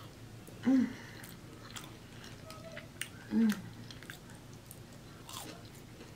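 Close-up eating sounds: wet chewing of macaroni and cheese and biting into cornmeal-fried shrimp, with scattered small mouth clicks. Two short voiced sounds come from the eater, about a second in and again about three seconds later.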